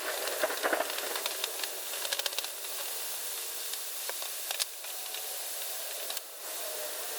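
Steady hiss of heavy rain drumming on the workshop roof, with scattered light metallic ticks and clicks over it.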